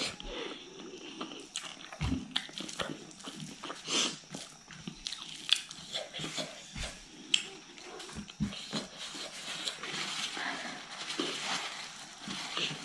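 Eating sounds: wet chewing and mouth smacks, with fingers squishing rice into curry by hand, as an irregular run of sharp clicks and squelches.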